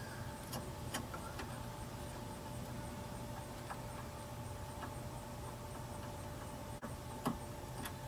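A few faint clicks and small plastic knocks as the wiring harness connector of a Firebird's pop-up headlight motor is handled and plugged back in. They sound over a steady faint hum.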